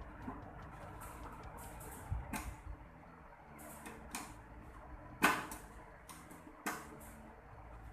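A screwdriver working the side screws and the metal hot-air gun holder being fitted to a rework station's metal case: a few sharp clicks and knocks with light scraping, the loudest a little after five seconds in.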